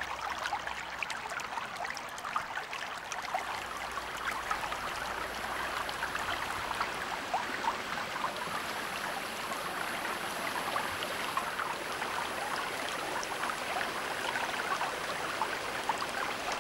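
River water rushing over rocks at a rapids: a steady splashing, with many small drips and plinks running through it.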